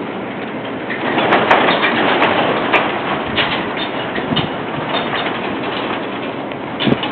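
Marine railway boat carriage rolling on its rails: a steady rumbling noise with scattered clicks and clanks, louder for a couple of seconds about a second in.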